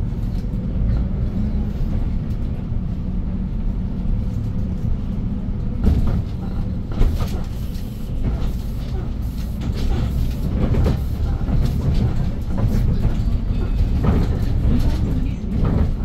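Inside a 2022 Hyundai New Super Aerocity city bus on the move: its compressed-natural-gas engine runs with a steady low drone while the body and fittings rattle. Two short knocks come about six and seven seconds in, and the rattling grows busier after that.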